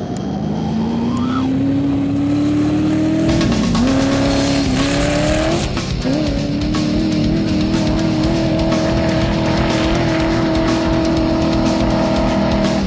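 Off-road race truck engine revving hard in the sand. Its pitch climbs over the first few seconds and then holds high, with a few brief dips. Loud rock music plays over it.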